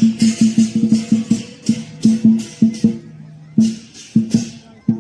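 Lion dance percussion: a drum beating a fast rhythm with cymbals clashing on most beats. It breaks off briefly a little past halfway, then resumes.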